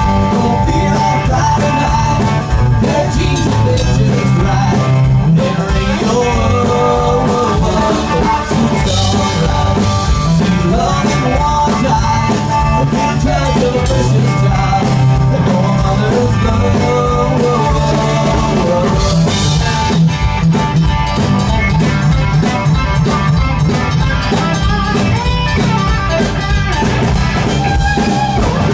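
Live country band playing a mostly instrumental passage: acoustic and electric guitars over a drum kit, steady and loud throughout.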